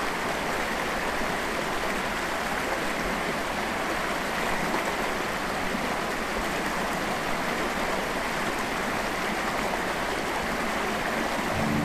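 Carnock Burn's water rushing and churning over rocks below a fallen log, a steady, even rush with no change.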